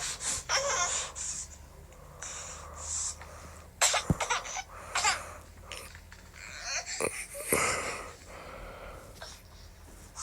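A baby's irregular wheezy gasps, breathy squeals and half-laughs in short bursts with brief pauses, the excited noises of an overstimulated baby.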